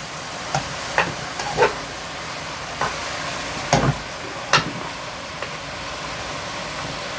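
Crumbled hot sausage sizzling steadily in a frying pan with olive oil and onions, with a few sharp knocks and scrapes of a utensil against the pan in the first few seconds as the meat is broken up and stirred.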